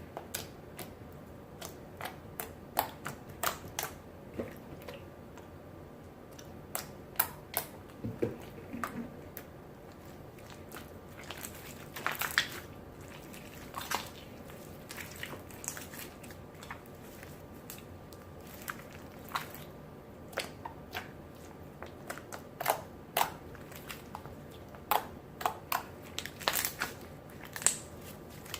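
Clear borax-and-glue jiggly slime being squished and poked by hand, giving irregular sharp pops and clicks, some in quick clusters.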